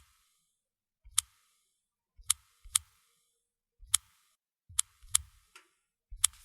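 Smartphone keyboard tap clicks while typing a message in WhatsApp: about eight short, sharp clicks at an irregular typing pace.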